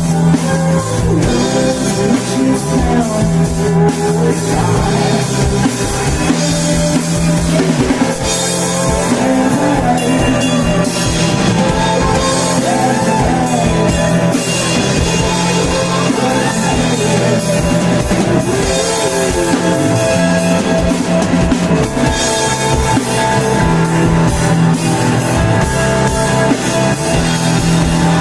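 Live rock band playing a song at steady loudness: drum kit and guitars under a sung melody.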